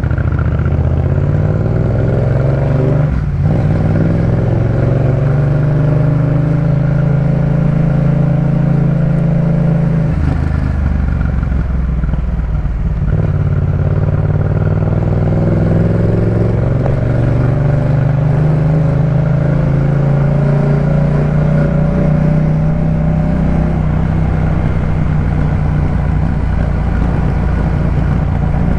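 Yamaha MT-07 689 cc parallel-twin engine running through a Jeskap K4 full aftermarket exhaust, its pitch rising and falling repeatedly, with sharp breaks about 3, 10 and 13 seconds in.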